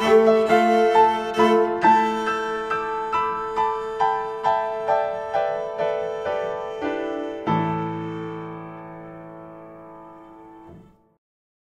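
Piano music: a slow line of single struck notes, then a final low chord about seven and a half seconds in that fades away and stops near the end.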